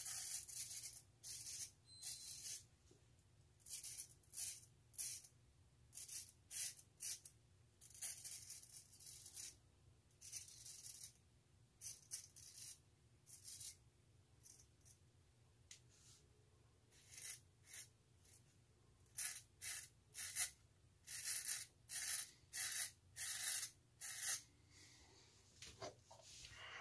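Razor blade scraping stubble through shaving lather on an against-the-grain pass: short, crisp rasping strokes in quick runs with pauses between, coming thicker in the last third.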